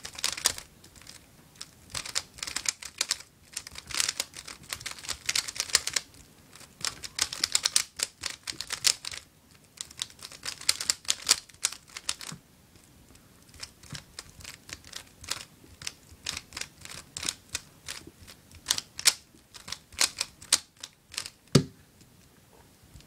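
Guhong v2 3x3 speedcube being turned fast in the hands: rapid runs of plastic clicks and clacks as the layers snap round, in spurts with short pauses, sparser and fainter for a few seconds in the middle.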